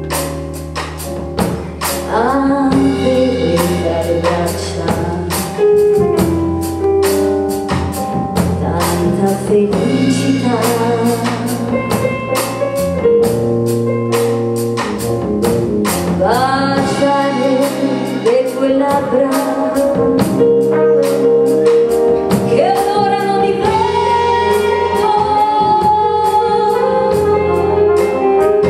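Live big-band music: a woman sings over a concert band of saxophones and brass, with a drum kit keeping a steady beat.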